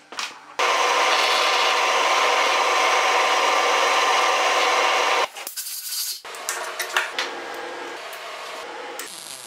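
Drill press bit cutting into a metal bar held in a machine vise: a loud, steady grinding that starts just under a second in and stops abruptly after about five seconds. Then quieter metal clicks and knocks.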